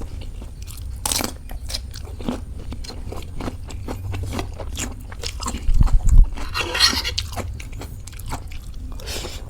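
Close-up sounds of a person chewing and eating fried noodles (mie goreng), with many small clicks and a brief scrape. There is a heavy low thump about six seconds in.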